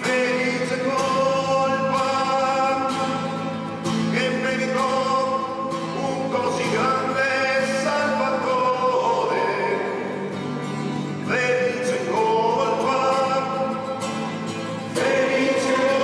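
A man's solo voice singing long liturgical phrases in Italian over acoustic guitar accompaniment. The phrases break off briefly about four seconds in, again around ten to twelve seconds, and near the end.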